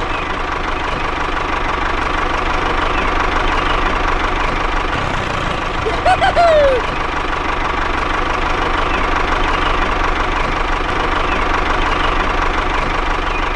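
A small engine running steadily, with a brief chirp about six seconds in.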